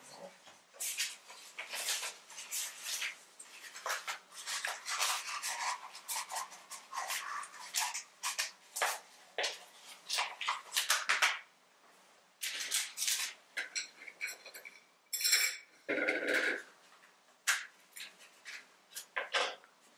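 Small metal tools and dishes being handled on a tabletop: a busy run of light clinks, taps, scrapes and rubbing. There is a louder, fuller knock about four fifths of the way through.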